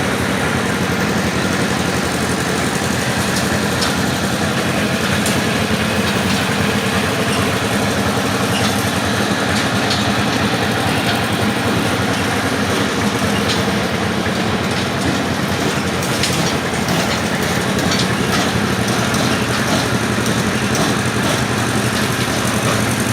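Rebar bending machine's motor running steadily, with scattered sharp clicks and knocks of steel bar.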